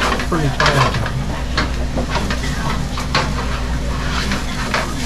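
Rice sizzling in a hot pan on a gas range as a utensil stirs and scrapes it around the pan in irregular strokes, over a steady low hum.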